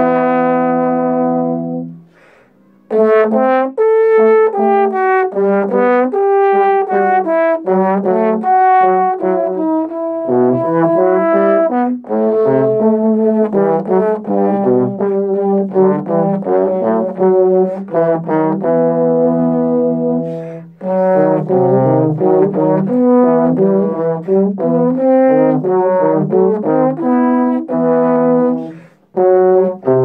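Two trombones playing a pasillo as a duet, two melodic lines moving together in phrases. A held chord opens, followed by a short pause about two seconds in, and there is another brief break near the end.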